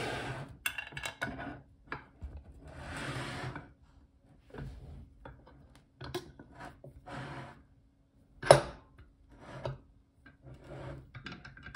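Brass padlock and its steel shackle being set into a cast-iron bench vise: metal scraping and rubbing against the vise jaws, broken up by clicks and knocks. One sharp metallic knock about two-thirds of the way through is the loudest sound.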